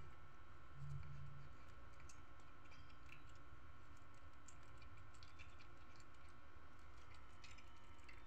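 A cat crunching dry kibble: faint, irregular little clicks, with a steady low hum underneath.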